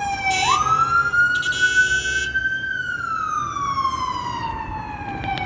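Ambulance siren in a slow wail, its pitch falling, sweeping up, then sliding down again. A short horn blast about half a second in and a longer one about a second and a half in sound over it.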